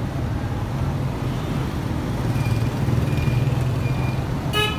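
Street traffic with a motor vehicle's engine rumbling steadily, growing louder through the middle, a few faint short high beeps, and a brief horn toot near the end.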